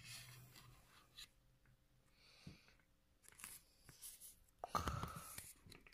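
Faint rustling and scraping of a trading card being slid into a plastic card sleeve and handled, with a slightly louder rustle about five seconds in.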